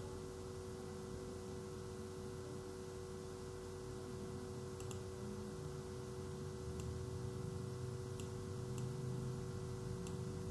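Faint computer mouse clicks, about five spread through the second half, over a steady low electrical hum from the recording.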